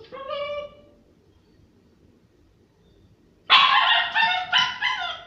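Small dog whining at the closed front door for about the first second, then, after a short quiet pause, breaking into a quick series of loud, high-pitched barks: the distress of a dog left alone in the house.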